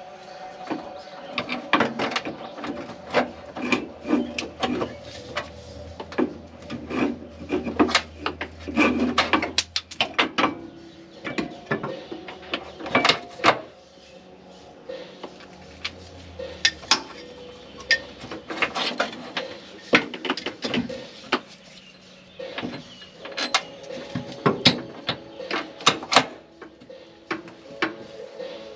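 Irregular metallic clicks, knocks and clanks from a new gas shock absorber and its mounting hardware being worked into the rear upper mount of a Chevy Astro/GMC Safari by hand, with rattles and rubbing of parts and tools. A quieter stretch comes about halfway through.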